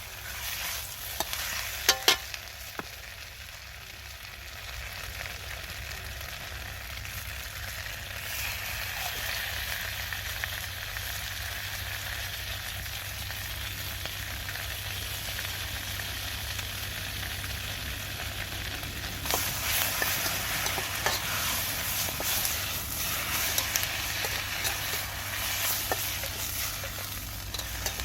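Food sizzling as it is stir-fried in a Chinese wok, with a few sharp knocks of a utensil against the pan in the first couple of seconds. About two-thirds of the way through the sizzling gets louder, with many small clicks and crackles.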